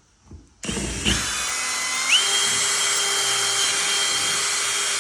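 Electric drill starting about half a second in and running steadily as it bores the hole for the lamp's holder in a cut pipe; its whine steps up in pitch about two seconds in.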